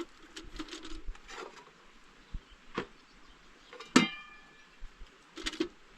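A few sharp knocks and clinks of objects being handled, the loudest about four seconds in ringing briefly.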